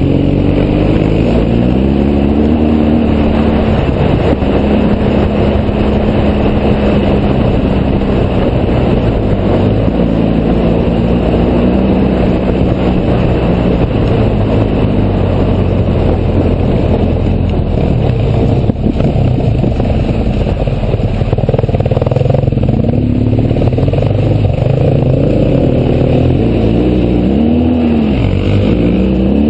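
BMW GS boxer-twin engine running under load at speed on a gravel road, its revs rising and falling with throttle and gear changes, over heavy wind rush on the microphone.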